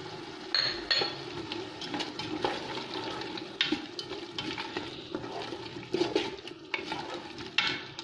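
Wooden spoon stirring diced carrots, potatoes and onion frying in oil in a metal pressure cooker. A steady sizzle runs under irregular scrapes and knocks of the spoon against the pot.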